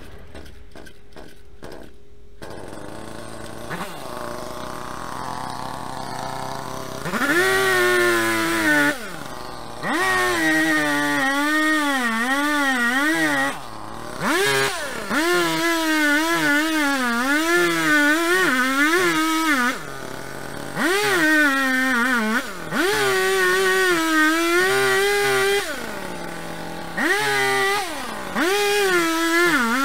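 Small two-stroke gasoline chainsaw that starts up about two seconds in and idles, then revs high and cuts into a tree stump, its pitch wavering under the load of the cut. It drops back to idle four times between cuts.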